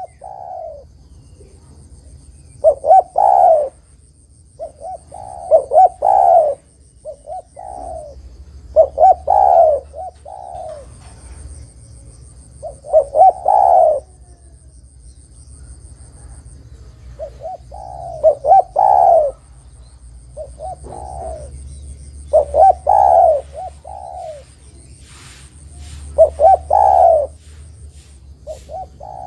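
A spotted dove (derkuku, tekukur) cooing: a phrase of several coo notes about every three to four seconds. A faint steady high-pitched tone runs underneath.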